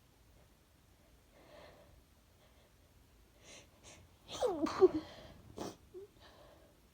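A woman's pepper-induced sneeze. Two quick catching breaths come a few seconds in, then one loud voiced sneeze, followed by a softer breath.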